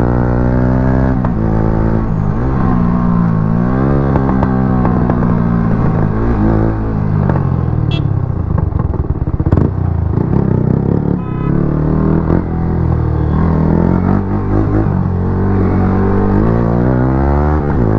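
Yamaha R15 V3's single-cylinder engine running through an aftermarket exhaust while riding. The revs rise and fall again and again through gear changes and throttle.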